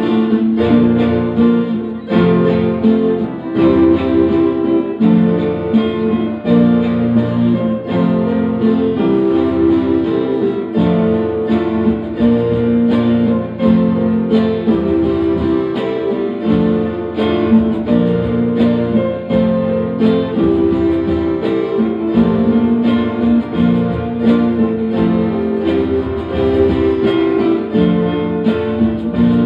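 Live instrumental music from a small band: electric guitar and two keyboards over tabla, playing a melody with a steady beat.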